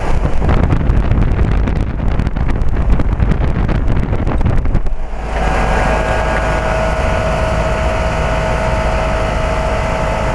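2004 Carrier 3-ton heat pump outdoor unit running in cooling mode, its compressor and condenser fan going steadily. For about the first five seconds gusty air rush buffets the microphone. After that it settles into a steady hum with a clear, steady whine.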